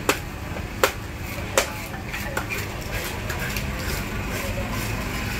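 A cleaver chopping on a block, three sharp strikes about three-quarters of a second apart in the first two seconds, over a steady din of market voices and background noise.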